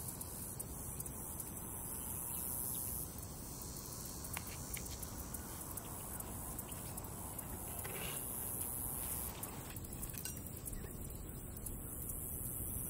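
Steady faint outdoor background hiss with a few soft taps and clicks of shrimp, scallion pieces and a bamboo skewer being handled on a wooden cutting board.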